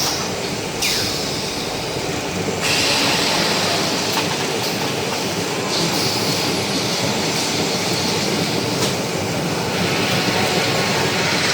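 Automatic flat-sheet sewing machine running, a steady mechanical clatter. A high hiss switches on and off every few seconds, and a short falling whine comes about a second in.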